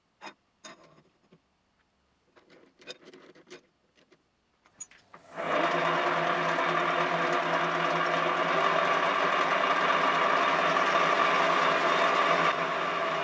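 A few scattered metallic clicks and knocks, then about five seconds in a small benchtop metalworking machine tool's electric motor and gearing start up and run steadily, with a high whine.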